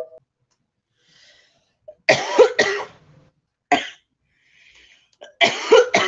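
A woman coughing hard in fits: a run of three coughs about two seconds in, a single cough a little later, and another run of coughs near the end.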